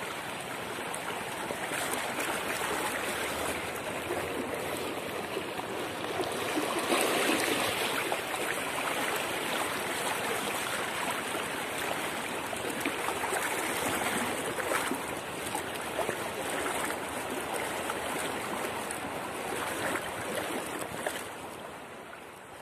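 Steady rush of a flowing river with splashing and swishing of legs wading waist-deep through it; it fades near the end.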